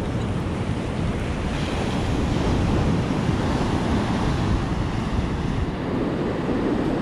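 Surf breaking steadily on a sandy beach, mixed with wind buffeting the microphone.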